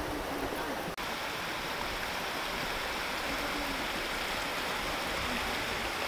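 River water running steadily, an even rushing noise that holds unbroken from about a second in.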